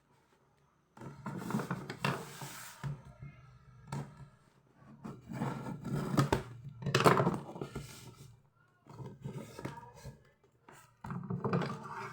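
Cardboard and plastic toy packaging handled and pulled at by hand, with rustling, scraping and dull knocks in uneven bursts, including a tearing sound about two seconds in.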